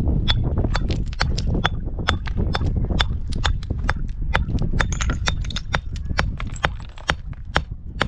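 A quick, uneven run of sharp knocks, about four a second, over a steady low rumble that eases near the end.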